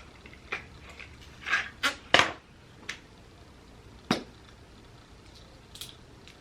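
A lipstick and its packaging being handled and opened: a series of short, separate clicks and brief rustles, the loudest a little after two seconds in.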